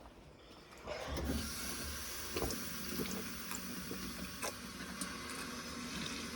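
Vacuum cleaner running with a steady hiss that comes in about a second in, with a few faint clicks over it.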